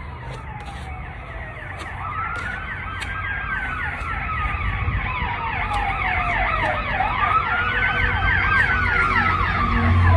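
Emergency vehicle siren with a slow rising-and-falling wail, a faster yelping sweep over it, growing louder.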